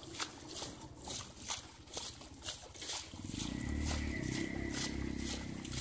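Wet splashes and slaps of hands scooping mud and water in a shallow muddy pond, about two a second. About three seconds in, a steady low motor hum starts up behind them.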